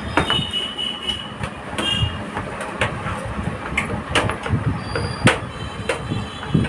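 Thin sheet-metal motherboard I/O shield being pressed into the rear opening of a PC cabinet: irregular sharp metallic clicks and clatter with scraping and a few brief squeaks.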